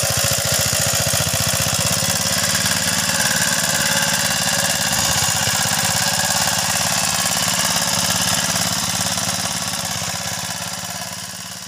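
Power weeder's small single-cylinder engine running steadily with a rapid pulsing beat as it tills between crop rows, fading near the end as the machine moves off.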